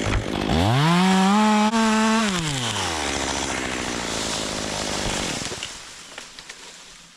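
Chainsaw revved up sharply to full speed, held there for about a second and a half, then dropped back to idle. It idles steadily, then fades away near the end.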